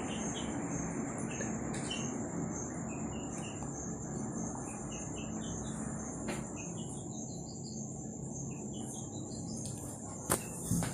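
Steady high-pitched cricket trill with runs of short chirps, over the scratch of chalk being drawn across a blackboard; two sharp taps near the end.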